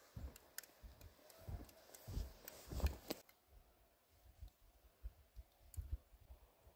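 Footsteps crunching and thudding in deep powder snow, an uneven step every half second or so. They are loudest in the first three seconds and fainter after that.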